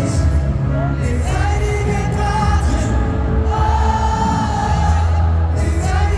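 Live Dutch-language pop song played through an arena PA: a lead vocal sung over a heavy, steady bass line, recorded from the audience stands.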